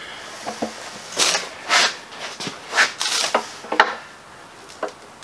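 Hands working on a bare Model T engine block while checking its valves: a string of short clicks and brief scraping rubs at uneven spacing, dying away near the end.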